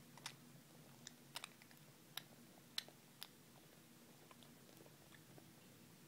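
A green-rumped parrotlet's beak clicking as it nibbles at a finger: about seven short, sharp clicks over the first three seconds or so, two of them in quick succession, against faint room hum.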